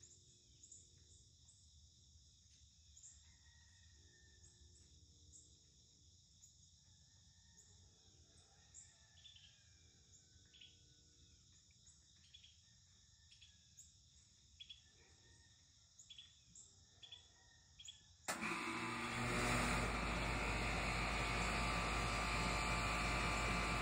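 Steady high trilling of insects with short bird chirps now and then, faint. About three-quarters of the way through, a loud steady rushing noise cuts in suddenly and drowns them out.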